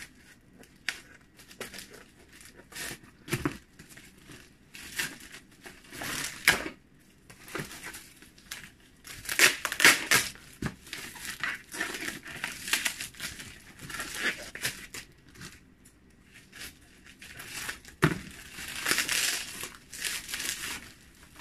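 Brown paper parcel wrapping being cut with scissors and torn off by hand, with irregular tearing and crumpling, loudest about halfway through; then plastic bubble wrap crinkling as it is pulled apart.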